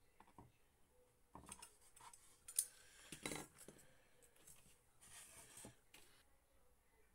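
Faint handling noises on a cutting mat: a sharp click as a plastic hand tool is set down, a few short scrapes as masking tape is picked off the edge of a painted panel, and a longer scrape about five seconds in as the panel is slid and turned on the mat.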